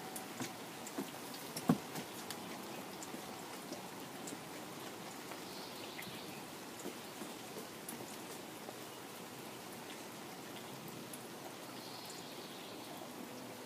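Rain falling on a garden pond: a steady patter of drops on the water and leaves, with many small ticks and one sharper tap about two seconds in.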